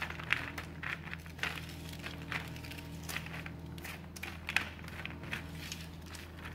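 Silicone spatula stirring honey-coated cashews on parchment paper in a baking tray: irregular crinkling of the paper and light clicks of the nuts knocking together, over a steady low hum.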